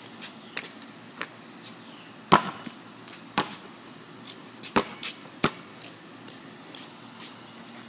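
Rubber basketball bouncing on a concrete driveway: a handful of sharp, irregularly spaced bounces, the loudest about two seconds in, with lighter taps in between.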